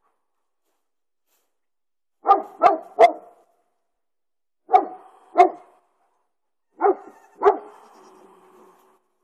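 A dog barking in short, sharp barks: three quick barks, then two, then two, the last trailing off faintly.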